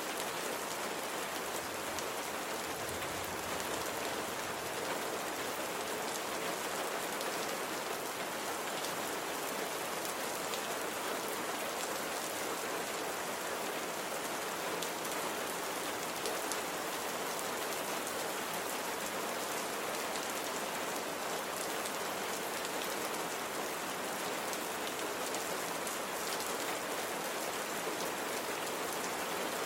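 Steady rain falling, a constant hiss with fine scattered patter of drops hitting a surface.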